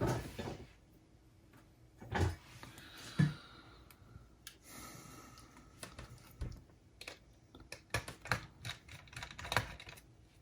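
Irregular small clicks and taps of tools and small plastic and metal parts being handled while a Sony MZ-RH1 MiniDisc recorder is taken apart. There are a few louder knocks in the first few seconds and a quicker run of clicks in the second half.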